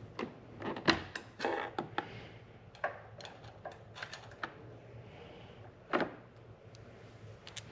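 Hands handling wiring and small plastic connectors in a UTV's headlight housing: a string of small clicks, taps and rustles, with sharper clicks about a second in and about six seconds in.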